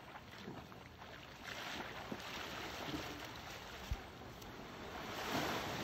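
Water washing at the shoreline with wind on the microphone, swelling twice; a short knock about four seconds in.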